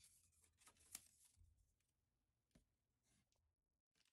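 Very faint handling noise: paper leaflets and plastic-bagged spare propellers rustle as they are laid on a wooden table, with a light tap about a second in and another a little later.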